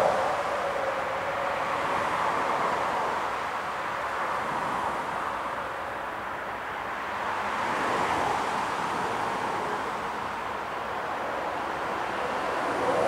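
Jet airliner engines running, a steady rushing noise that slowly swells and eases.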